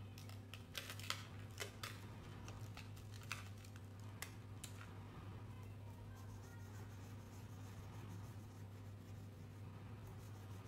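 Crayons clicking and clattering against each other in their box as one is picked out, a dozen or so sharp clicks over the first four and a half seconds, then crayon scratching faintly on paper as it colours. A steady low electrical hum runs underneath.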